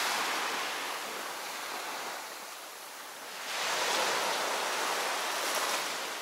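Small waves breaking and washing up a sandy beach. A steady hiss of surf eases off, then swells again with a new wave about three and a half seconds in.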